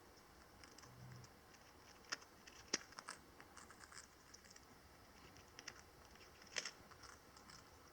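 Parrot nibbling a biscuit: faint, irregular crunching clicks and scratchy ticks from its beak breaking off pieces, with two sharper cracks about a third of the way in and near the end.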